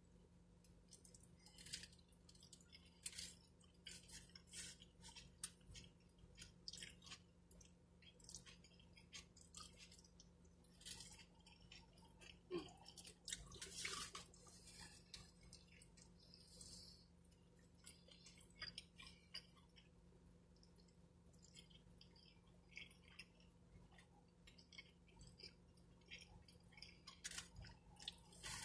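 A person chewing a burrito close to the microphone: soft, irregular wet mouth clicks and smacks over a faint steady hum.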